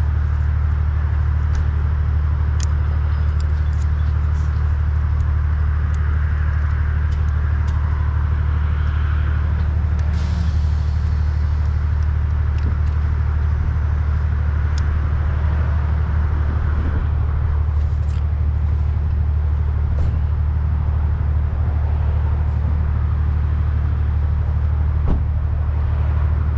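A steady, loud low mechanical hum, with scattered small clicks and knocks over it and a sharper knock near the end.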